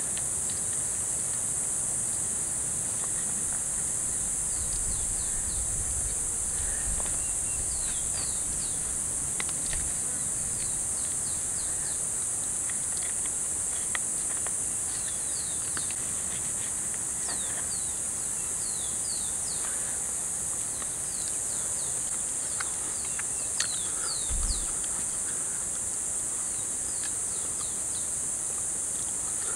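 Steady high-pitched drone of an insect chorus, with many short falling bird chirps over it and a few light clicks and knocks.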